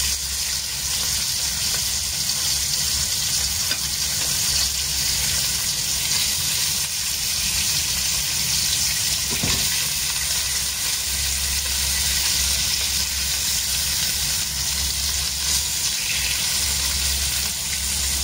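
Fish pieces and garlic frying in oil in a nonstick wok: a steady sizzle, with a slotted spatula turning the pieces now and then and a low hum that comes and goes underneath.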